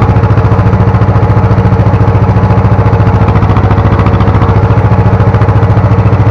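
Ursus C-330's two-cylinder diesel engine running steadily with a fast, even beat, labouring under heavy load as the tractor pulls a three-furrow plough up a steep slope in second gear.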